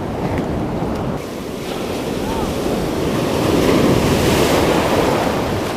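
Ocean surf breaking and washing over the sand close by, the wash swelling loudest about halfway through, with wind buffeting the microphone.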